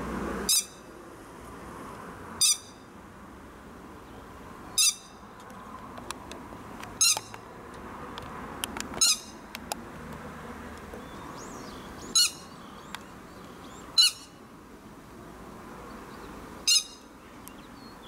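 Grey-headed lapwing calling: eight short, sharp, high calls about two seconds apart, over a faint steady hiss.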